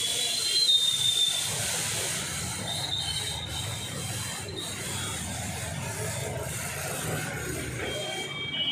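Outdoor ambience: a steady hiss over a low engine rumble, with a few short high chirps. Near the end a motorcycle passes close and several steady high tones begin.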